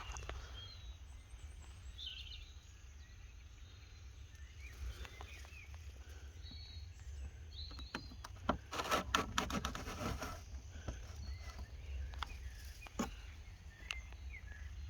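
Quiet outdoor ambience: a low rumble of wind or traffic with scattered distant bird chirps, and a short spell of rustling and knocks from footsteps and handled gear about two-thirds of the way through.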